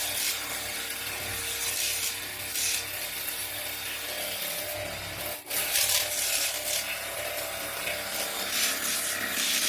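A pressure washer's jet spraying onto a car door handle, a steady hiss of water that surges a little and breaks off for an instant about five and a half seconds in.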